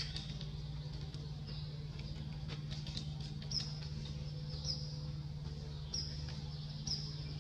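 Short high-pitched animal chirps, each dropping slightly in pitch, repeating about once a second and growing stronger in the second half, over a steady low hum. A few faint ticks come just before the middle.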